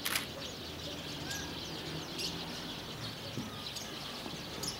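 Many small birds chirping together in a continuous chatter, with a sharp click just after the start.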